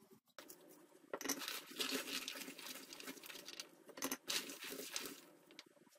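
Gloved hands pressing and crushing a mass of red hawthorn berries in a stainless steel bowl: the berries rustle and rattle against the metal, with small sharp clicks, in two stretches that stop about five seconds in.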